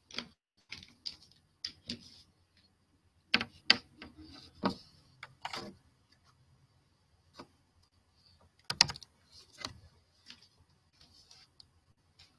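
Irregular, scattered short clicks and taps, heaviest in two clusters about three and a half and nine seconds in.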